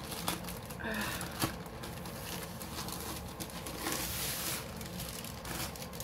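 Rolled diamond-painting canvas being handled and unrolled on a table: light rustling and crinkling with scattered small taps, and a louder rustle about four seconds in.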